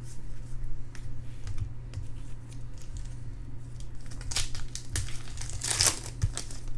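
Foil trading-card pack wrapper crinkling and tearing as a pack is opened, with small clicks of cards being handled. Two louder rips come a little past halfway.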